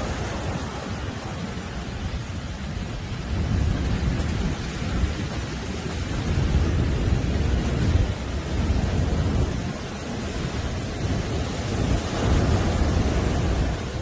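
Rough surf breaking on a sandy beach: a continuous deep rumble and hiss of churning white water that swells louder several times as big waves crash.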